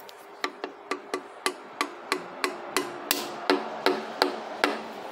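A tool handle tapping again and again, about three times a second, on a stuck-open inlet valve in a Mitsubishi 4D56U diesel cylinder head. Each light knock has a short metallic ring. The valve will not close, which is probably why the engine was smoking so much.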